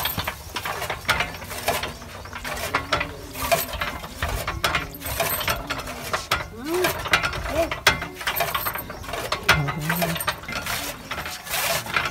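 Hand-cranked chaff cutter (fodder chopper) with a large flywheel being turned while green fodder is fed in, its gears and blade clacking and chopping over and over.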